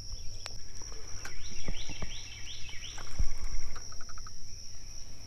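Steady high-pitched insect drone. About two seconds in, a bird sings four quick repeated notes, followed a little later by a short fast series of ticks. A few light clicks and a low thump about three seconds in come from the boat and fishing gear.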